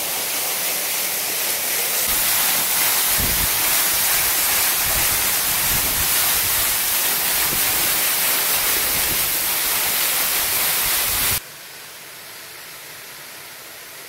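Small waterfall pouring through a hole in a rock overhang, its water splashing steadily onto rock. About eleven seconds in, the rush drops abruptly to a much quieter, steady hiss of the falls.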